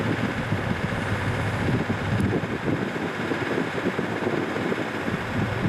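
Steady rumble of a C58 steam locomotive moving slowly while shunting, heard from a distance, with wind buffeting the microphone; no distinct chuffs stand out.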